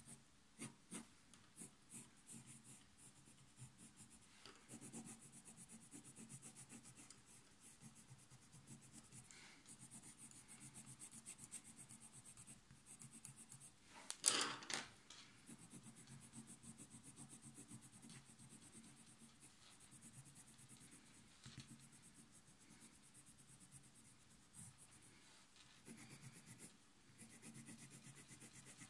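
Faint scratching of a coloured pencil stroking across drawing paper, shading in hair, with one brief louder noise about halfway through.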